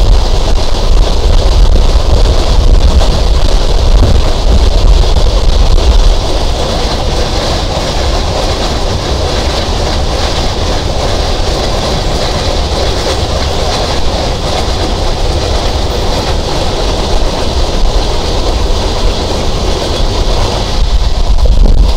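Sundarban Express intercity passenger train running at speed, heard from on board: a steady rumble of the carriages on the rails, a little quieter after about six seconds.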